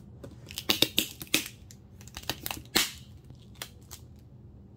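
Packaging being handled and crinkled: a quick run of sharp crackles and rustles, loudest about a second in and again near three seconds in.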